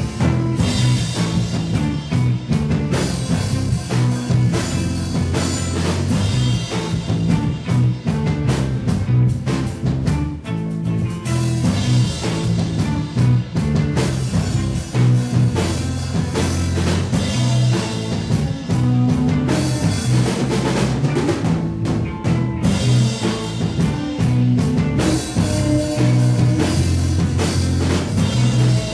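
Live rock band playing loud, with a drum kit driving the beat over amplified instruments.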